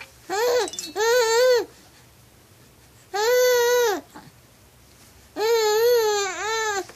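Baby cooing and babbling: four drawn-out, high vowel-like sounds with short quiet gaps between them. The longest comes near the end, lasts about a second and a half and wavers up and down in pitch.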